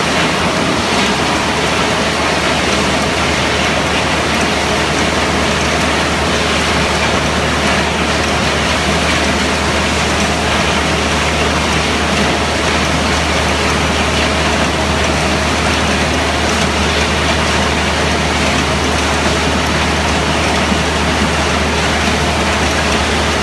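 HDPE pipe shredding and crushing line running: a loud, steady machine noise with a constant low hum underneath.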